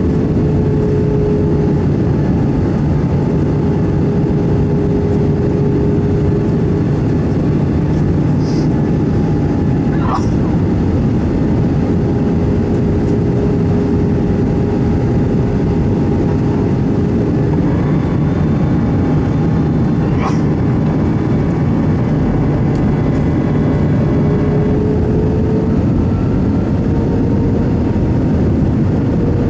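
Steady engine and airflow drone inside the cabin of an Airbus A319 airliner in flight, with a faint steady hum running through it. A couple of faint clicks, about ten and twenty seconds in.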